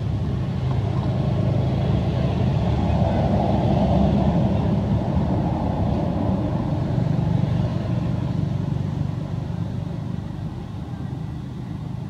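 Low, steady motor-vehicle engine rumble that swells through the middle and fades away over the last few seconds, as a vehicle passing by would.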